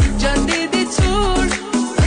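Background music: a pop or rap track with a steady beat, deep bass hits and a melodic vocal line.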